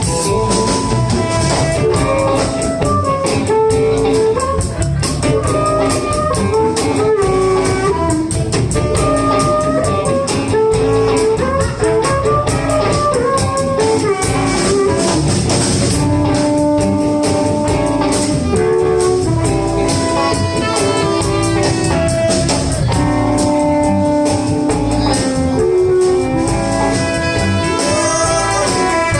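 Live blues band playing an instrumental passage, with no singing: drum kit, bass and guitars under a lead line of held, bending notes.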